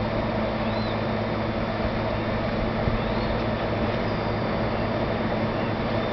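Steady mechanical hum and hiss, a low drone that does not change, with two faint high chirps.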